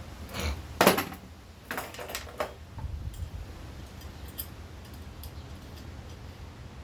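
Handling noise from tools and hardware: a sharp knock about a second in, a few clicks and clatters just after it, then faint ticks over a low rumble.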